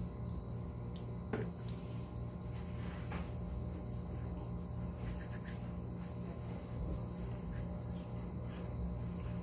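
A steady low hum, with faint soft rubbing sounds from hands massaging foam cleanser over wet facial skin.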